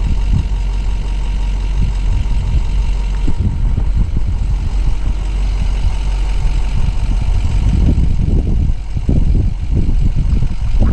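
Truck camper driving slowly over a rough, rocky dirt trail: the engine runs low and steady under irregular bumps and jolts, which come thicker near the end.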